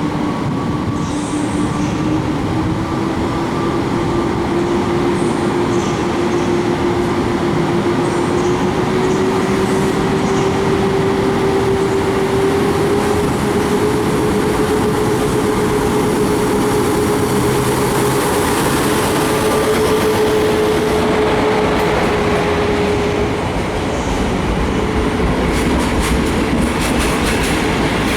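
EP09 electric locomotive hauling an Intercity train, its traction motors whining with a pitch that rises steadily as it gathers speed, then holds level, over the rumble of the train. Near the end come short clicks of wheels over rail joints.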